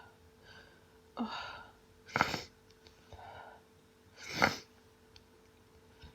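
A woman sneezing twice, about two seconds apart, each sneeze preceded by a gasping in-breath. These are hay fever sneezes from a sneezing fit.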